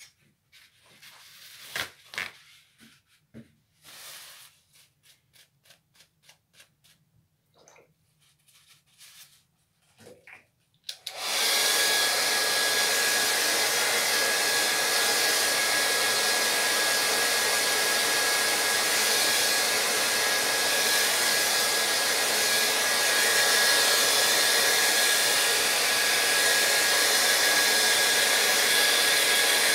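A few light taps and knocks, then a hand-held hair dryer switches on about eleven seconds in and blows steadily, with a faint steady whine in its hiss. It is aimed at a watercolour painting to dry the paint.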